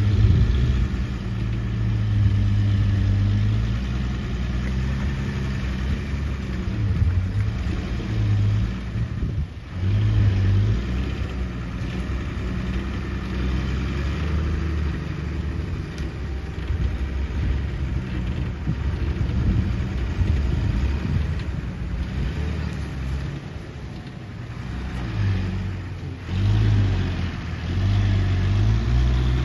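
Excavator engine running continuously, its low hum swelling and easing several times as the load changes.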